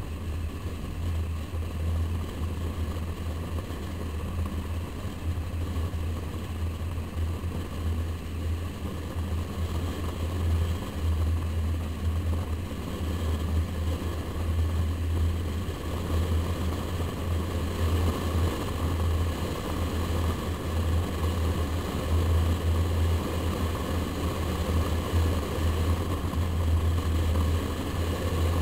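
Wind buffeting the microphone of a camera mounted on the outside of a moving car, a steady, uneven low rumble over continuous tyre and road noise.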